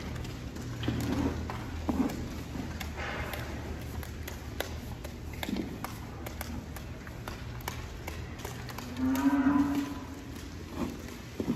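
A Holstein dairy cow moos once, a call of about a second, near the end. Before it, a long-handled scraper scrapes and knocks now and then across the concrete alley and sawdust bedding, over a steady low hum.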